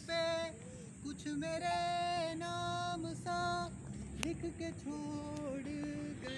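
Singing: a slow melody of long held notes that step from one pitch to the next.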